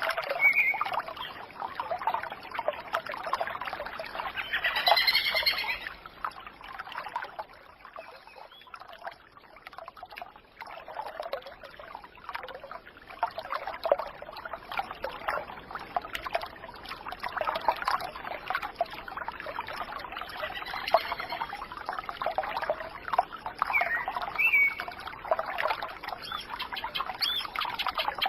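Birds chirping and calling over a steady trickle of running water, with a few louder chirps standing out about five seconds in and again near the end.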